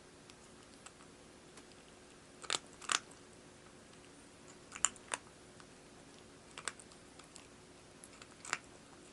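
A cat crunching dry cat food: sharp, separate crunches every second or two over a low hiss.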